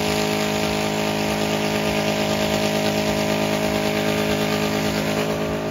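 Car engine held at steady revs, its pitch unchanging.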